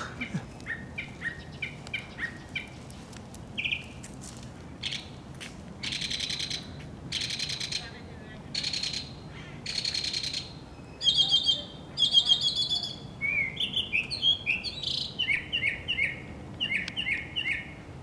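A songbird singing a long, varied song: quick series of short chirps, then several harsh raspy phrases about a second apart, then warbled trills, and then clipped repeated notes again near the end.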